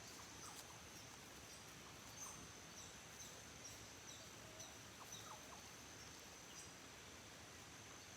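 Near silence: faint outdoor ambience with a steady high-pitched insect tone and a few short, faint bird chirps.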